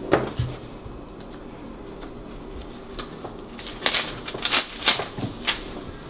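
A pen and sheets of paper being handled on a wooden table: a few short knocks and rustles, one near the start and a cluster in the second half.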